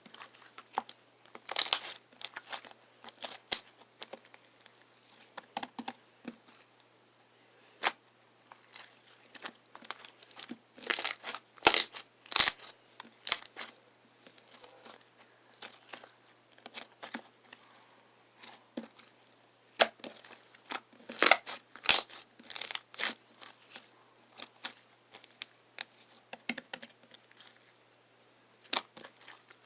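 Slime being squeezed, pressed and stretched by hand, giving irregular crackling pops and clicks, with louder clusters near the start, around the middle and about two-thirds of the way through.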